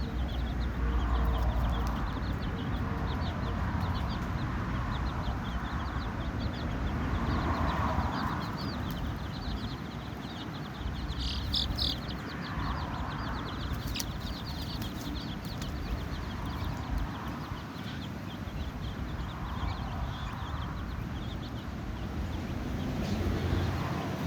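A brood of chicks peeping: many short, high chirps overlapping without a break, over a low rumbling background.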